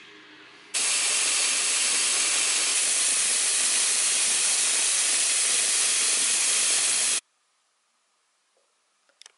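Tap water running into a bathtub as it fills, a steady rush that cuts in abruptly about a second in and stops sharply near 7 seconds.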